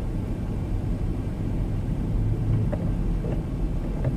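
Steady low rumble of a four-wheel-drive vehicle's engine and tyres on a snow-covered road, heard from inside the cab, with a constant low hum.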